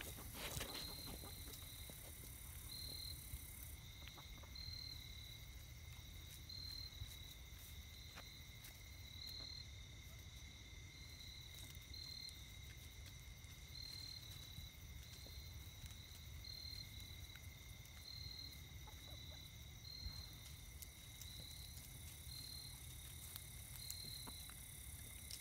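Faint, steady chirping of insects in a chorus: a continuous high trill with a regular pulse about once every second or less, over a low rumble.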